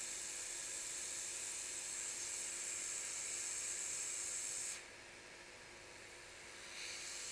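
Hot air from a Blackjack BK6000 rework station blowing from its nozzle as a steady high hiss. It cuts off abruptly about five seconds in, and a fainter hiss comes back near the end.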